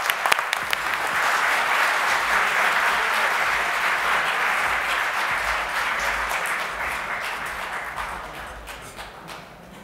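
Audience applauding: separate claps merge into steady applause, which dies away over the last few seconds.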